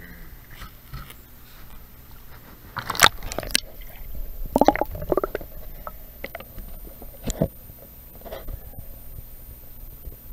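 Stream water sloshing and gurgling around a camera dipped under the surface, heard muffled from underwater. Strong splashy surges come about three seconds in and again around five seconds, with scattered knocks between.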